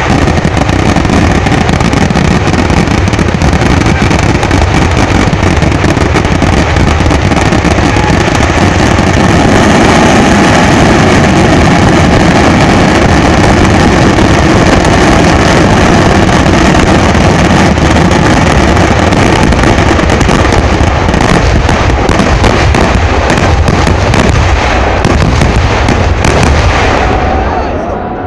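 Fireworks going off in a dense, unbroken barrage of blasts, so many and so close together that they merge into one continuous loud din. It thins out and fades near the end.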